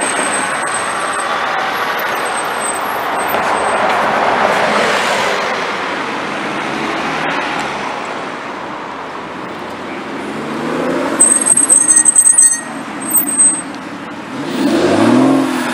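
Sports cars driving past in city traffic, their engine and tyre noise swelling and fading. About eleven seconds in there is a burst of loud sharp pops and crackles, and near the end an engine revs up.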